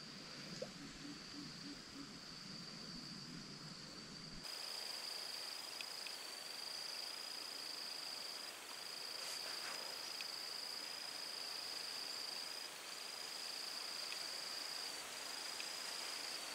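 Insects trilling in one steady high-pitched tone, held for a couple of seconds at a time with brief breaks, louder from about four seconds in.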